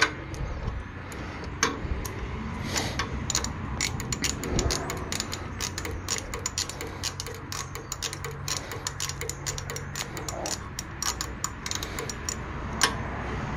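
Socket ratchet clicking in short irregular runs as a spark plug is turned back into the cylinder head of a Briggs & Stratton engine.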